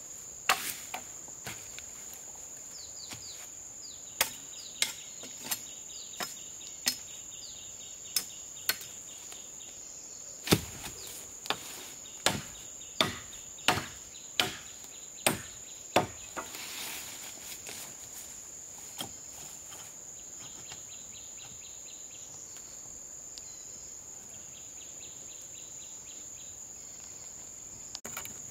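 Wood being chopped: a series of sharp blows, roughly one or two a second, that stop about two-thirds of the way through. A steady, high-pitched insect drone runs underneath.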